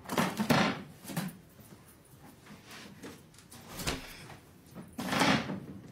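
Handling sounds as a cardboard box is opened and things are moved about on a counter: a few short rustling bursts, a sharp knock about four seconds in, and another, stronger rustle near the end.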